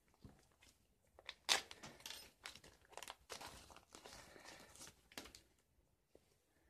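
Thin clear plastic coin bag crinkling and rustling as gloved fingers open it and work a silver dollar out, in irregular crackles that stop a little after five seconds in.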